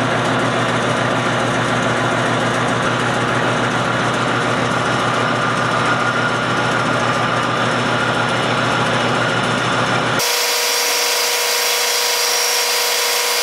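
Metal lathe running with a parting tool cutting into a spinning threaded bolt blank, a steady machining noise. About ten seconds in, the sound jumps abruptly higher in pitch and loses its low end, where the footage is played four times faster.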